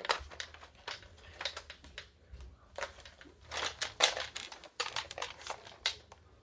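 Handling noise close to the microphone: a run of irregular clicks and short rustles, bunched together, the loudest about four seconds in.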